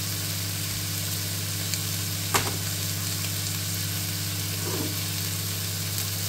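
Raw diced chicken frying in oil in a pan, sizzling steadily, over a steady low hum. A single short click about two and a half seconds in.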